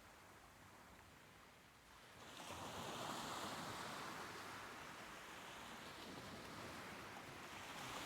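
Soft ocean waves washing ashore: a quiet lull, then a wave swells in about two seconds in and rushes on, with another building at the end.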